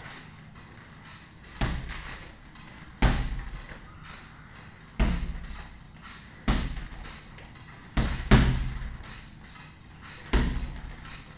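Gloved punches landing on a double-end punching ball on elastic cords: a sharp thud every one and a half to two seconds, seven in all, with two hits in quick succession about eight seconds in, each one ringing on in the room.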